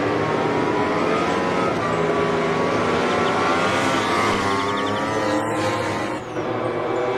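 MotoGP racing motorcycles at full throttle, their high-revving engines rising and falling in pitch as they pass.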